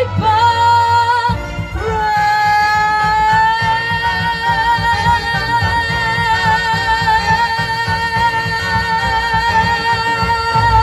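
A teenage girl singing live over a backing track: after a couple of short notes, about two seconds in she takes up one long note with vibrato and holds it for about nine seconds, the climactic held note at the close of the song.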